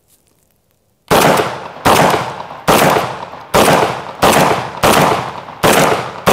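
Fostech Origin 12 SBV, a semi-automatic 12-gauge smoothbore shotgun, fired rapidly: about eight loud shots a little under a second apart, each with a long echo, the first about a second in.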